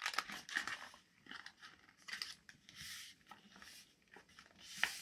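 A sheet of paper being folded and creased by hand: faint, irregular rustles and crinkles as the bottom edge is folded up and pressed flat, with a slightly louder rustle near the end.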